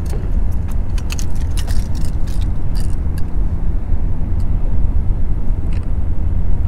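Wind buffeting the microphone: a steady low rumble, with a few light clicks in the first three seconds.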